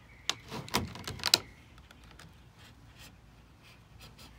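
Razor knife blade cutting through a vinyl siding outside corner piece: a quick run of sharp clicks and scrapes in the first second and a half, then only faint ticks.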